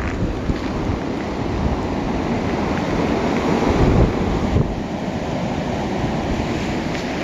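Blizzard wind blowing hard and gusting, buffeting the microphone with a steady low rumble and rush.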